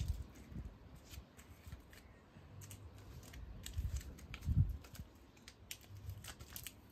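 Faint clicks and ticks of a motorcycle mirror stem and its fittings being turned and adjusted by hand, with a couple of dull low thumps, the loudest about four and a half seconds in.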